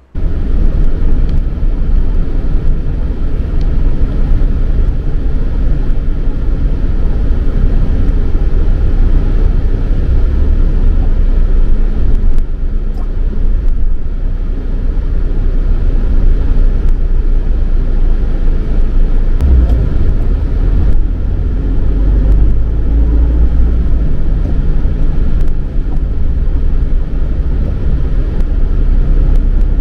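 Road and engine noise inside a moving vehicle driving through city traffic: a loud, steady low rumble that starts abruptly.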